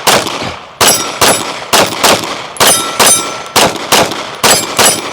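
Glock 45 9mm pistol firing a rapid string of about ten shots, roughly two a second, with the ring of steel targets being hit after some of them.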